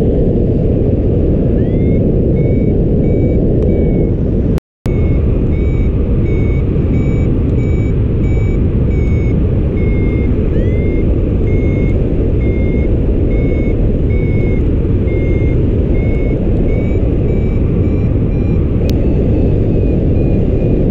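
Paragliding variometer beeping, about two short beeps a second with small shifts in pitch, over loud, steady wind rushing past the microphone in flight. The beeping is the vario's climb tone, a sign that the glider is rising in lift. The sound cuts out completely for a moment about four and a half seconds in.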